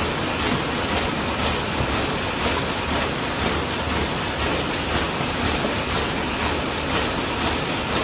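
Automatic paper shopping bag making machine running in production: a steady, dense mechanical clatter with a regular beat as bags are formed and delivered.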